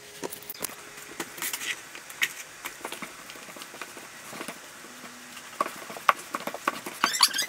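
Rubber grout float scraping across marble subway tile as grout is packed into the joints, with scattered light taps and scrapes. Louder, rapid squeaking of the float against the tile starts near the end.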